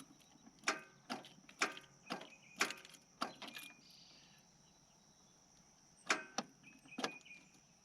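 A string of sharp clicks at irregular spacing, several in the first few seconds and two more near the end, from the Yanmar EX3200 tractor's controls and safety switches being worked while it fails to start. Crickets chirr steadily in the background.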